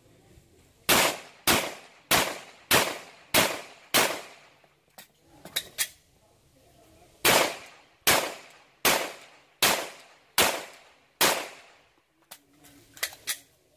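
Glock 41 Gen 4 .45 ACP pistol firing two strings of six shots. The first six come about 0.6 s apart. After a pause of about three seconds with a few light clicks, the next six come a little slower, about 0.8 s apart.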